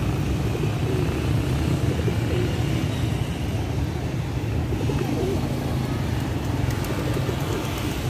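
Steady low rumble of nearby road traffic, with feral pigeons cooing faintly now and then.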